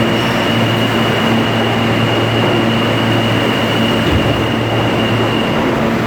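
R160-series subway train running out of the station alongside the platform: a loud, steady rumble of wheels and motors, with a thin high steady whine that stops near the end.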